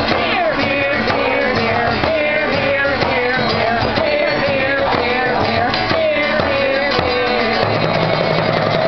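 Live acoustic folk music: an acoustic guitar strummed steadily with a hand-held frame drum beaten along, under sung voices.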